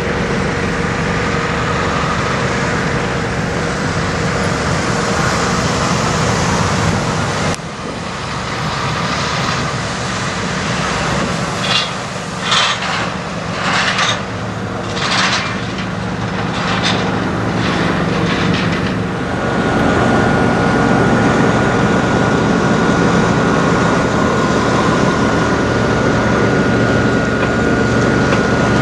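Diesel semi trucks running, with a steady engine rumble. Around the middle, as the Peterbilt 389 car hauler passes, there are several short bursts of hiss. In the last part a steady high whine runs over the engine sound.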